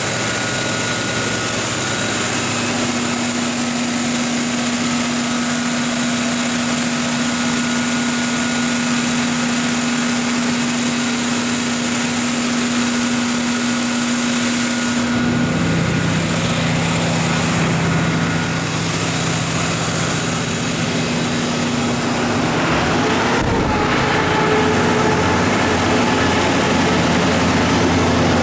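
MTU 16V2000 V16 diesel engine of a Kohler 1000 kW generator set running steadily, with its hum shifting lower about halfway through.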